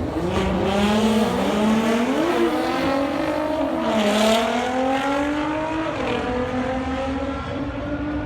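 A car engine revving hard under acceleration, its pitch climbing and dropping back several times, as at gear changes.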